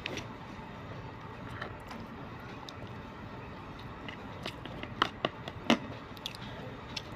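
A person eating close to the microphone: chewing, with a cluster of sharp clicks and taps of a plastic spoon against a plastic food container about five seconds in.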